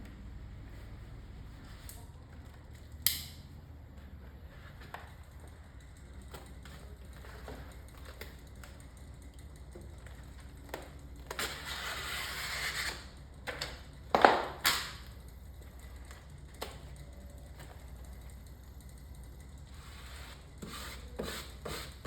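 Rustling and crinkling of a vinyl stripe's paper backing being peeled off and the vinyl handled, with scattered small clicks and taps and two louder sharp sounds, one about three seconds in and one about fourteen seconds in. A low steady hum runs underneath.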